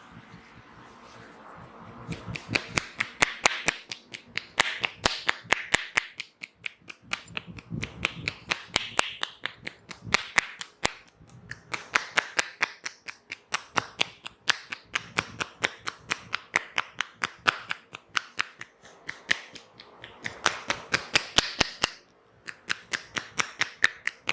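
Rapid hand tapping and slapping of a head massage: sharp slaps, about five a second, in runs with short pauses.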